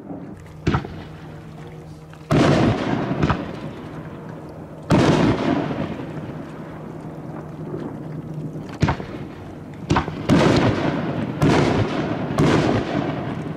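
Aerial fireworks shells bursting, about nine sharp booms spread irregularly, some close together, each trailing a long rumbling echo. A steady low hum runs underneath until about two thirds of the way through.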